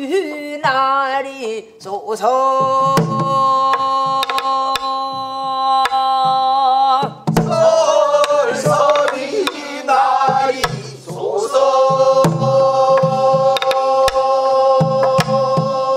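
Korean Namdo folk song sung in long held notes with a wide, wavering vibrato, accompanied by a buk barrel drum struck with a stick in an uneven, sparse rhythm. The voice breaks off briefly about seven seconds in and again around eleven seconds, then holds another long note.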